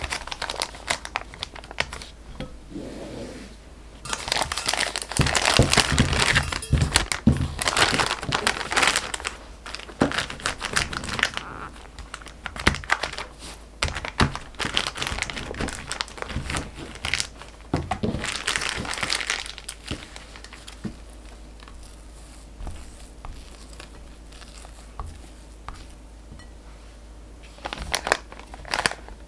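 Disposable plastic piping bag crinkling and rustling as it is handled, filled and pressed flat with a scraper, in several bursts with quieter stretches between.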